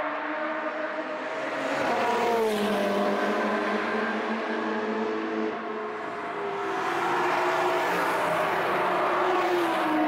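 Track-day cars driving past at speed, several engines running at once. An engine note drops sharply in pitch about two seconds in, and again near the end.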